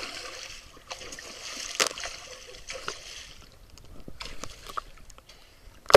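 Swimming-pool water splashing and sloshing as people move in it, with a hiss of churned water at first and then scattered sharper splashes, the strongest about two seconds in and another right at the end.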